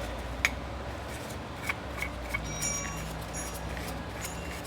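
A few light metallic clicks and clinks of hand tools and parts being handled, the sharpest about half a second in, over a low steady hum.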